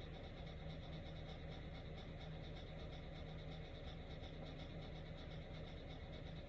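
Quiet, steady room tone: a low hum with a faint high-pitched buzz, unchanging throughout, with no distinct events.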